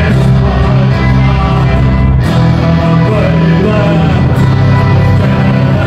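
English neofolk band playing live, with electric guitars, bass, drums, violin and cello, and a voice singing over them.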